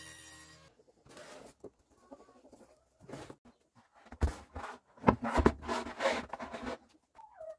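A steady machine tone cuts off under a second in. Then come irregular knocks and handling noise as a black plastic bucket is picked up and moved, loudest a few seconds in. Near the end there is a short falling call, like a bird's.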